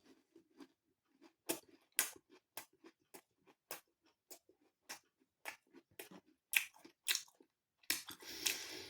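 Close-up chewing of crisp, flaky air-fried sausage roll pastry: a string of short, sharp crunches at irregular intervals, about one every half second, with a longer crackle near the end.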